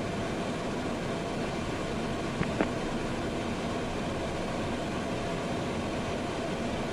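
Steady cockpit noise of a twin-engine business jet in level flight: an even rush of air and engine noise, with two faint clicks about two and a half seconds in.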